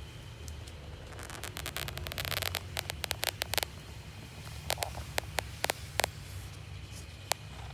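Rustling, then a string of sharp clicks and taps from parts being handled during assembly, over a steady low hum.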